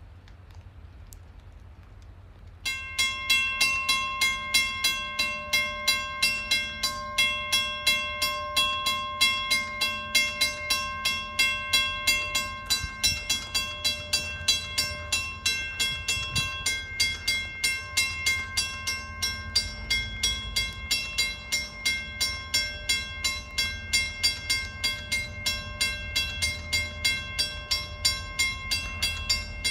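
Railroad grade-crossing warning bells start ringing about three seconds in, a fast, steady run of dings with several ringing tones overlapping, signalling that the crossing has activated for an approaching train. A low rumble builds underneath in the second half.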